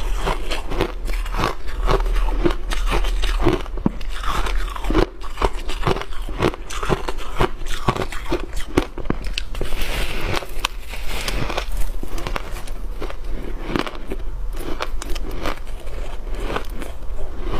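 Block of refrozen shaved ice being bitten and chewed: a dense, continuous run of crisp crunches and crackles, picked up close to the mouth by clip-on microphones.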